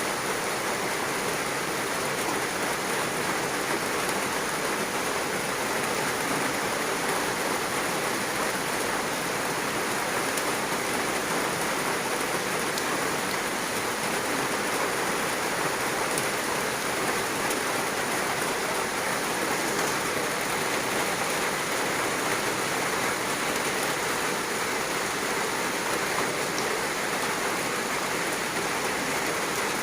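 Heavy rain falling steadily, an even hiss of rain on surfaces.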